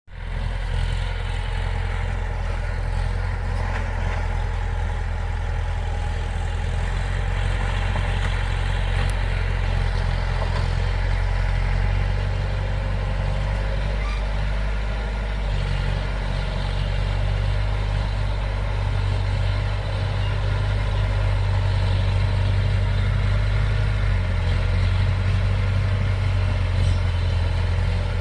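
Heavy diesel engine of a bulldozer running steadily, with small shifts in load.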